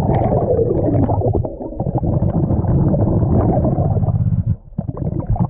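A diver's exhaled air bubbling, heard underwater, in long low bursts broken by two short pauses.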